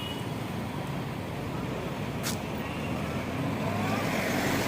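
Road traffic: vehicle engine and tyre noise that grows louder toward the end as a vehicle approaches, with a short sharp sound about two seconds in.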